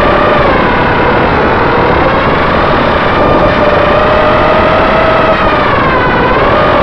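EMAX RS2205 brushless motors and propellers of an FPV racing quadcopter whining in flight, the pitch wavering up and down with the throttle and dipping briefly about six seconds in, over a steady rush of air.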